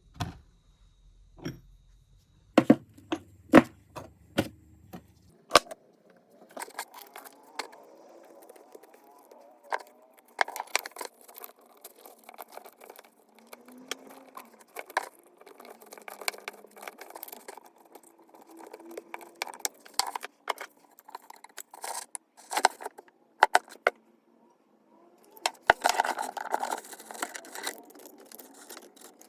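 Metal parts of an antique bullet reloading tool clicking and clinking as they are handled, in short irregular strikes at first and then a denser clatter, busiest near the end.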